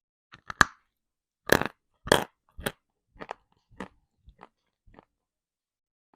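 Close-miked biting and chewing of a dry lump of edible chalky clay: a few loud, sharp crunches in the first two seconds, then smaller chewing crunches that grow fainter and stop about five seconds in.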